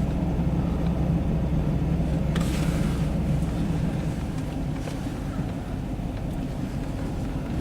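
Truck engine running steadily while driving through snow, a low even hum that eases off slightly about three and a half seconds in.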